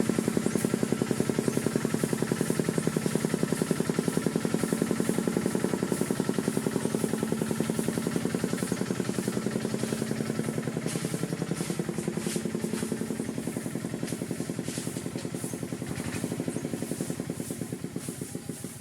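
Single-cylinder diesel engine of a Khmer two-wheel hand tractor running with a fast, even chugging, growing fainter over the last several seconds.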